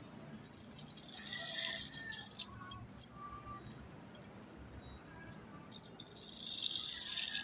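Small die-cast toy truck's wheels rattling and grinding over rough concrete as it is pushed by hand, in two spells: about a second in and again near the end.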